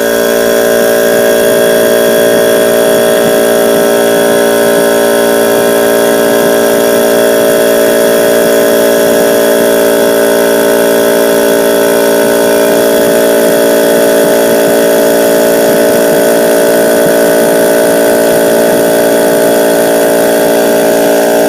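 Husky 10-gallon air compressor running steadily with a loud, even motor-and-pump hum, after its piston cylinder was realigned so that the piston moves freely.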